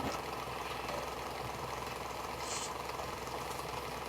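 Steady low mechanical hum, like a running appliance or fan, with a brief soft hiss about two and a half seconds in.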